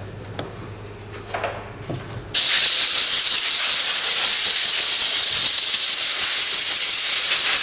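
Compressed-air blow gun blasting, a loud steady hiss that starts abruptly a little over two seconds in, blowing out a dirty, rusted tailgate soft-close latch mechanism.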